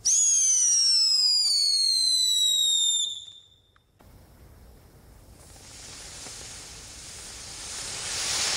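Whistling ground firework: a loud, piercing whistle that slides slowly down in pitch for about three seconds, then stops. A few seconds later a ground firework's spark spray sets up a hiss that grows louder toward the end.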